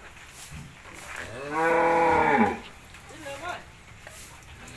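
A cow moos once, a single call of about a second that rises and then falls in pitch, starting about one and a half seconds in.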